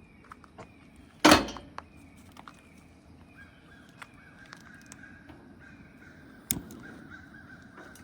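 Birds calling over and over, short falling calls about twice a second, with a loud knock about a second in and another knock near the end.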